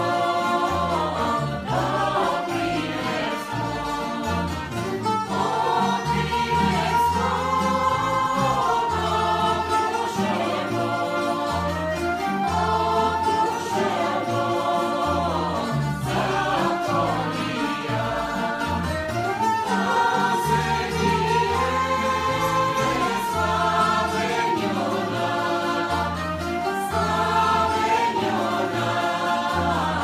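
Bulgarian folk song sung by a mixed choir of women's and men's voices in unison, accompanied by two plucked tamburas keeping a steady rhythm.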